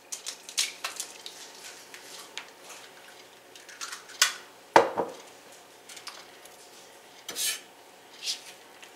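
Scattered clicks and knocks of kitchen handling: an egg cracked over a plate of canned salmon, a glass bowl set down with a sharp knock about halfway through, and a knife scraping chopped onion across a cutting mat near the end.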